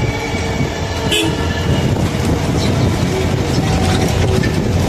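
Steady loud rumble and rattle of a moving vehicle heard from on board, with a sharp knock about a second in.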